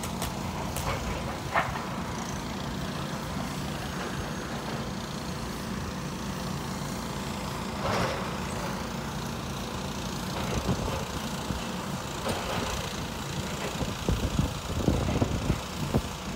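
A demolition excavator's diesel engine runs steadily, with occasional sharp knocks as it works the rubble. Near the end comes a run of heavy, irregular knocks and crashes.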